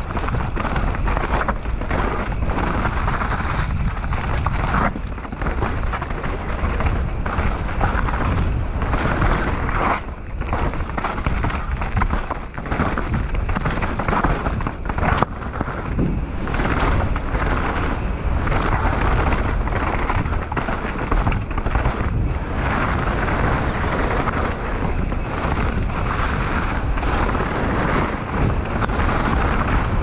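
Mountain bike riding fast down a rocky, rooty singletrack: tyres rolling over dirt and stones, with frequent sharp knocks and rattles from the bike as it strikes rocks and roots, and steady wind rushing over the camera microphone.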